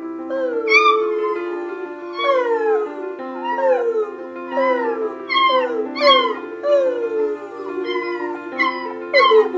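Beagle puppy howling in a quick run of short howls, each falling in pitch, roughly one a second or faster, over background music with long held notes.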